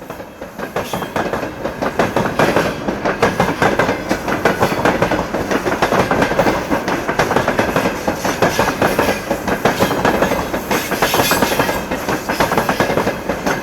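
A train passing close by, its wheels clattering over the rail joints in a dense, continuous run of clicks.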